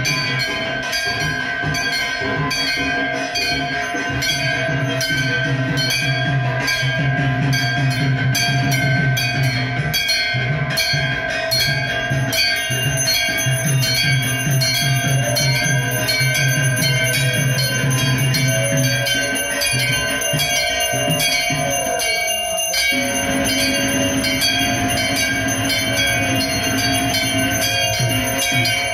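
Bells ringing fast and evenly over devotional music with a low drone, as in a temple aarti.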